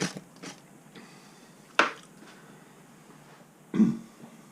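A few isolated clicks and knocks of something being handled, with a sharp click about two seconds in and a duller, lower knock near the end.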